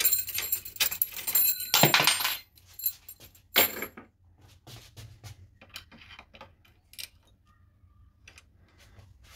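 Metal keys and lock hardware jingling and clinking as they are handled, with bright ringing over the first two seconds and a sharp clink near four seconds in, then scattered light clicks.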